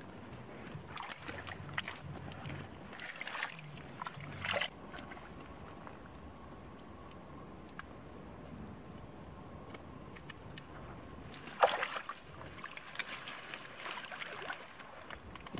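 Hands digging and scooping through wet mud, squelching in several separate bouts; the loudest comes about twelve seconds in.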